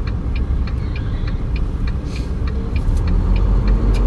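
Inside the cab of a Volvo semi-truck: steady engine and road rumble with a light, regular ticking about four times a second. Near the end the engine note starts to rise as the truck pulls harder.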